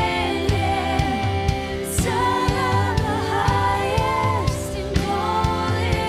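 Live worship music: a woman singing over sustained chords, with a low beat about twice a second.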